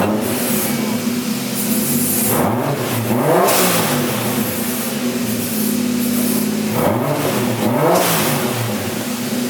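Toyota Supra MK2's 1JZ turbo inline-six idling through a new MagnaFlow muffler. It is revved in two quick double blips, about two and seven seconds in, each rising and dropping back to idle.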